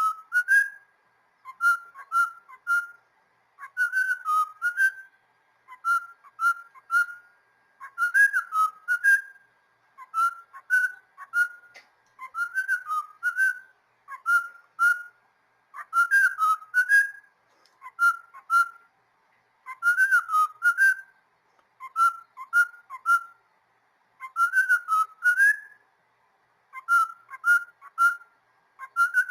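Pet cockatiel whistling its song: short warbling phrases that bend up and down in pitch, repeated over and over with brief pauses, about one every one to two seconds.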